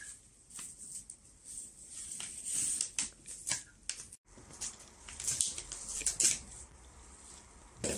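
Brown paper food bag crinkling and rustling in short, irregular bursts as it is handled, with a louder crackle near the end.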